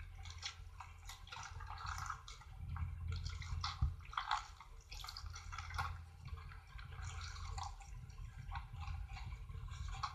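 Homemade glue-and-borax slime being worked by hand, giving many small irregular wet squelches, sticky pops and clicks.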